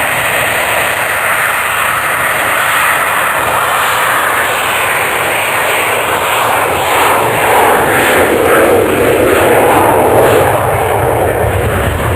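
Fixed-wing aircraft flying past, its engine noise swelling to a peak about nine or ten seconds in, with the pitch sliding down.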